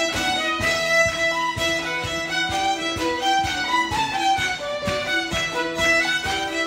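Two fiddles playing a lively traditional tune together, over a plucked string instrument strumming a steady, even rhythm.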